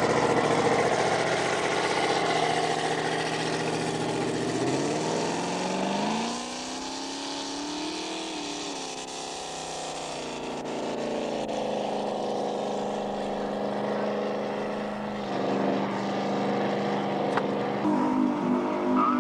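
Supercharged V8 engine of a ski race boat running. About four and a half seconds in it revs up, its pitch rising for a few seconds, then drops back to a steady idle.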